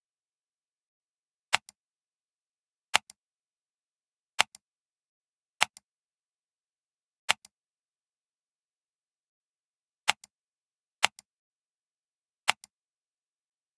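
Computer mouse button clicked eight times at uneven intervals. Each click is a sharp press followed a split second later by a softer release click, with silence between.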